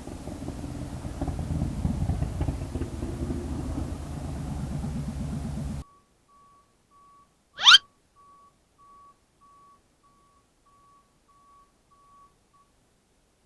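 A vehicle running, a steady low engine and road noise, cut off abruptly about six seconds in. Then a quick rising sweep, the loudest sound, and a series of faint short evenly spaced beeps, about two or three a second, that stop shortly before the end.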